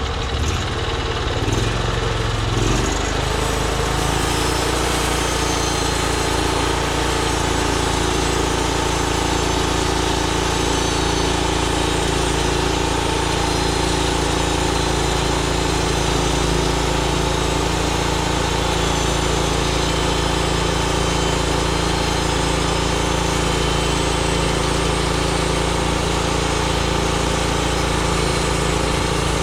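Small gas engine of a Norwood MX34 portable bandsaw mill running steadily. Its speed shifts during the first few seconds, then settles to an even drone.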